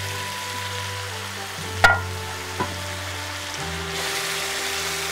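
Bottle gourd pieces and shrimp sizzling in an oiled nonstick pan while being stirred with a spoon. A sharp clink of the spoon against the pan about two seconds in, and a lighter knock shortly after.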